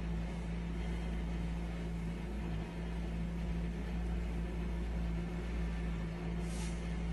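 A steady low hum or drone, with one short faint scuff near the end.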